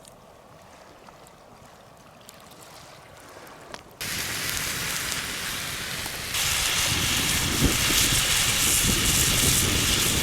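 Moose fat and tenderloin steaks sizzling in a frying pan. After a few quiet seconds with faint clicks, the sizzle starts suddenly about four seconds in and gets louder about two seconds later, as more meat goes into the hot fat.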